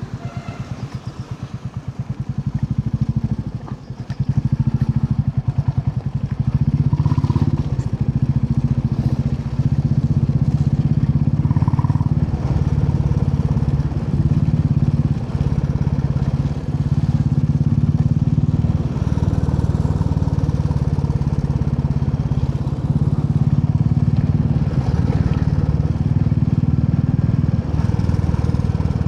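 Royal Enfield Classic 350 single-cylinder engine, first running slowly with an even beat of separate firing pulses, then, after a brief dip about four seconds in, running louder and steadily as the motorcycle gets under way.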